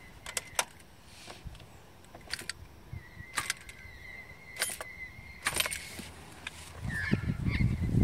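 Car key clicking and jingling in a Toyota's ignition switch, about half a dozen sharp clicks, with a steady high beep from the dashboard sounding for a couple of seconds in the middle. A louder low rumble starts about seven seconds in.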